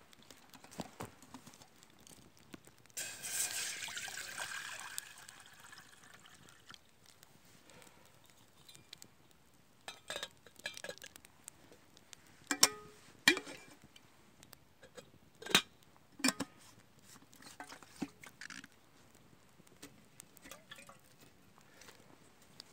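Kettle over a small wood campfire: a watery hiss starts about three seconds in and fades over a couple of seconds. Later comes a string of sharp clicks and knocks as a steel vacuum flask and its cap are handled beside the fire.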